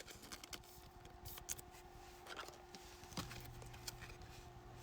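Faint clicks and light rustling of trading cards being handled, with a faint steady electrical hum.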